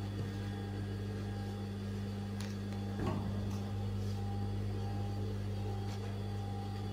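Sheer blouse fabric handled by hand over a steady low electrical hum, with a short rustle about three seconds in and a few light clicks.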